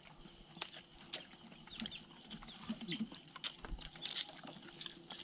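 Several people eating with their hands: scattered lip smacks, chewing and small clicks, with a brief low vocal sound near three seconds in.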